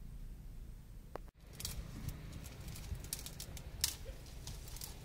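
Dry twigs and brush crackling and snapping as they are pulled apart by hand: a scatter of sharp, irregular clicks that start about a second and a half in, over a steady low rumble.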